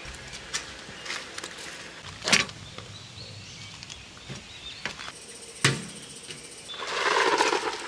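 A few sharp knocks, two of them louder, then a longer rustling scrape near the end, over a faint high insect buzz.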